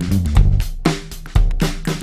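Background music: a drum kit keeping a steady beat over a bass line.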